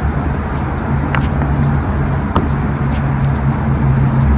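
Steady low rumble of nearby road traffic, with a vehicle engine humming, and a couple of faint clicks.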